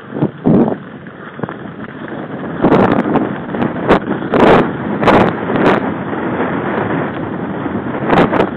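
Mountain bike riding fast over a rough dirt track: a steady rush of wind on the microphone and tyres on dirt, with sharp knocks and clatters as the bike jolts over bumps. It grows louder and busier from about three seconds in, with several loud knocks in quick succession.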